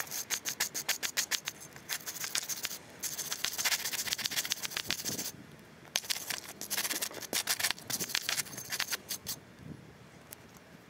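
Wire brush scrubbing a freshly cast aluminum bar, cleaning sand residue off the casting. Rapid scratchy strokes in several bursts, with a brief pause about five seconds in, tapering off near the end.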